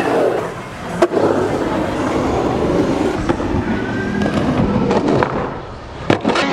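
Skateboard wheels rolling and carving on a concrete bowl, with one sharp clack about a second in and a quick pair of clacks near the end as the board hits the coping at the lip.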